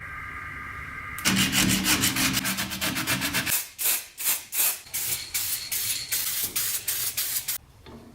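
A steady whine for about a second, then a long run of rhythmic rubbing or scraping strokes, about three to four a second, stopping suddenly near the end.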